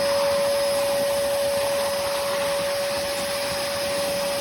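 Hoover PortaPOWER lightweight vacuum cleaner running steadily, a constant motor whine over the rush of air.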